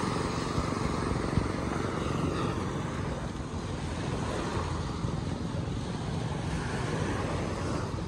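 Small waves washing steadily onto a beach, mixed with wind rumbling on the microphone.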